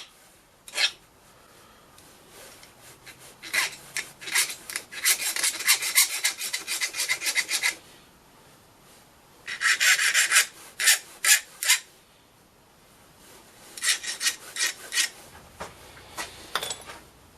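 Metal file rasping on brass, filing the burr left by the parting-off cut flat. The strokes come in several quick runs with short pauses between.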